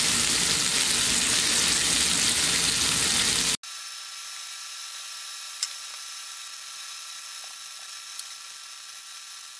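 A beef burger patty sizzling in hot bacon fat in a cast-iron skillet. A little over a third of the way in, the sizzle cuts off abruptly to a much quieter, thin whir of steady tones, with two faint clicks.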